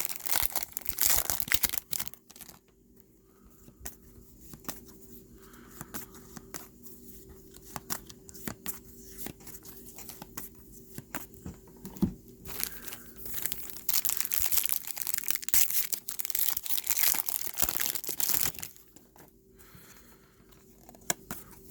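Trading card pack wrappers being torn open and crinkled, in loud bursts at the start and again past the middle, with softer handling clicks of cards being shuffled in between.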